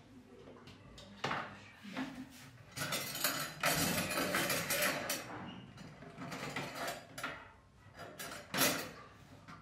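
A kitchen wall cabinet door being opened and items on its shelves being handled and shifted. The result is a string of clicks and knocks, busiest a few seconds in, with a sharp knock near the end.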